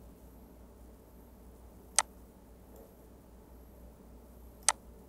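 Two sharp computer mouse clicks, about two and a half seconds apart, over a faint steady low hum.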